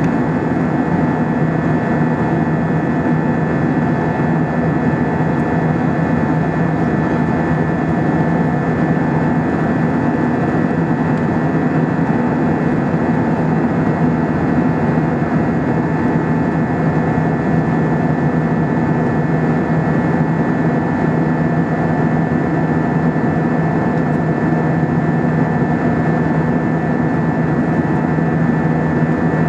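The Airbus A320-232's IAE V2500 turbofan engines and rushing air heard inside the passenger cabin, a steady drone with a few held tones through it.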